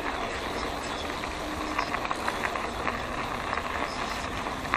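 Bicycle riding noise picked up by an action camera in an open housing: steady rushing of wind and tyres rolling on asphalt, with many small rattling clicks from the bike over the path surface.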